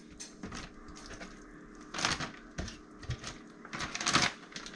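Zip-top plastic bag of fish fry mix crinkling and rustling in the hands as pieces of raw fish fillet are dropped into it, with a few soft knocks. The crinkling comes in irregular bursts, loudest about four seconds in.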